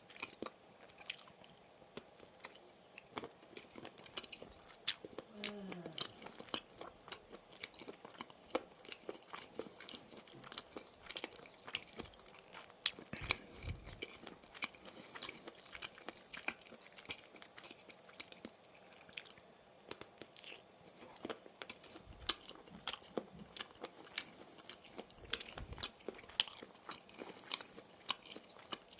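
Close-miked chewing and biting of Maxbong sausage sticks, with dense, irregular wet clicks throughout. A brief falling tone comes about six seconds in, and there are a few low thumps.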